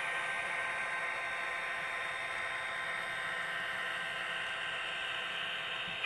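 N scale model diesel locomotive's sound decoder playing a steady diesel engine running sound through its tiny speaker, thin and hissy, mixed with the whir of the model's motor and wheels on the track.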